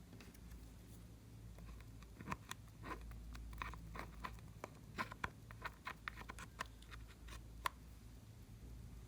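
Slime being pressed and stretched by hand, making soft, irregular sticky clicks and pops.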